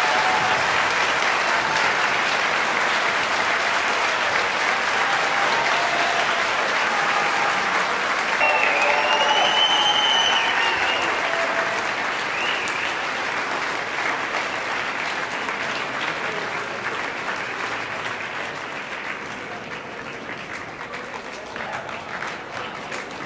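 Concert audience applauding after an orchestral piece ends, with a few voices calling out about eight to ten seconds in; the applause dies away over the last several seconds.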